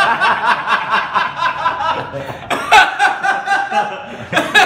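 Two men laughing: a long run of quick, repeated laughs, then two short bursts of laughter, one midway and one near the end.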